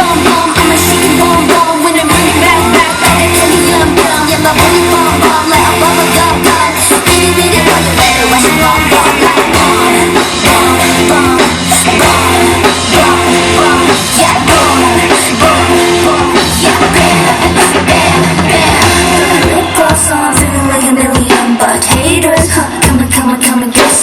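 Pop dance song performed live by a girl group: singing over a loud, heavy, steady beat and bass.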